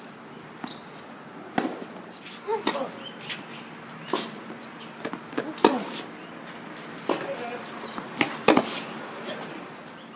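Tennis ball being struck with rackets and bouncing on a hard court during a rally: several sharp hits spaced a second or two apart, with short vocal sounds from the players between them.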